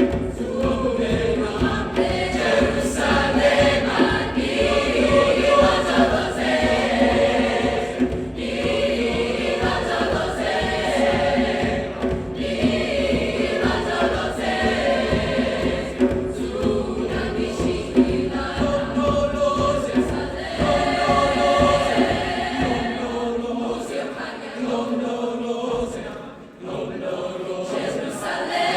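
A choir singing, with sustained sung pitches. The deep bass underneath drops away about five seconds before the end.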